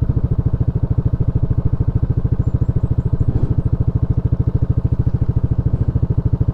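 Motorcycle engine running steadily with a fast, even beat that holds at the same pitch, neither revving nor slowing.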